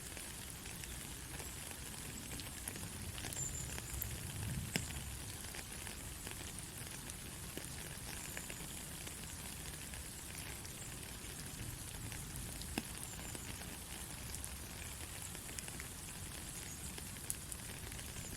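Steady light rain: an even hiss with scattered drop ticks and a faint low rumble underneath.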